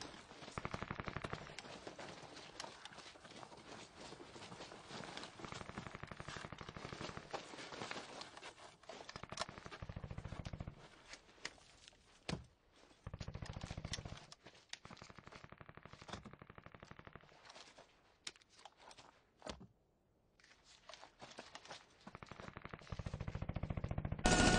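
Bursts of automatic gunfire mixed with single gunshots in a gunfight, with a short lull about twenty seconds in.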